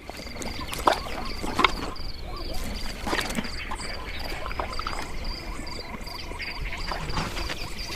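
Frogs croaking over a steady chorus of short high chirps, about three a second, with a few louder croaks in the first two seconds.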